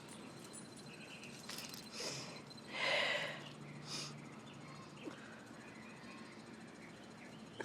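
Dogs playing quietly: a few short breathy huffs, the loudest about three seconds in, with a faint low drone under them for a couple of seconds.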